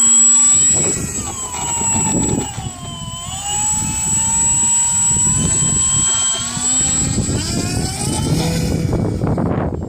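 Electric motor and propeller of a radio-controlled flying lawnmower model aircraft whining under power. The pitch rises at the start, dips about three seconds in, climbs again and holds steady with throttle, over a constant high thin tone.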